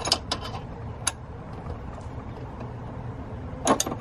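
Brake line wrench working a flare nut loose on the clutch slave cylinder's hydraulic line: a few short, sharp metal clicks in the first second and a close pair near the end, over a low steady rumble.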